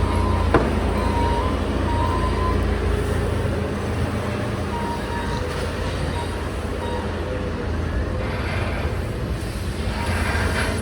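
Steady low rumble of road traffic and engines on a city street, with one sharp knock about half a second in.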